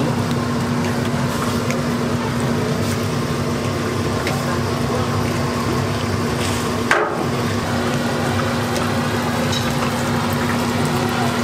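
Doughnuts and twisted kkwabaegi dough deep-frying in a large pan of hot oil, bubbling and sizzling steadily over a low hum. One short knock about seven seconds in.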